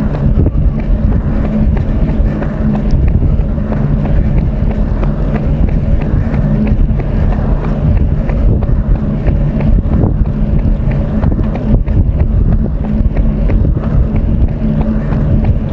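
Wind rushing over the microphone of a camera carried on a run: a loud, steady low rumble.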